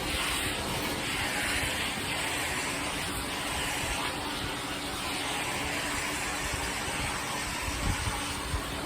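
Pressure washer spraying a concrete pool deck: a steady hiss of water jet on concrete that swells and fades every few seconds, over the constant hum of the machine's engine and pump.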